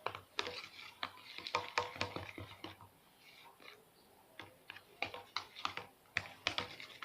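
Irregular small clicks and taps of containers and utensils being handled, in two busy spells with a quieter pause in the middle.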